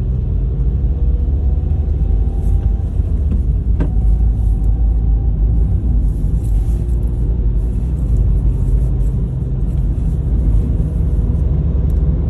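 Steady low rumble of a car driving at moderate speed, heard from inside the cabin: engine and tyre noise on the road. A single sharp click sounds about four seconds in.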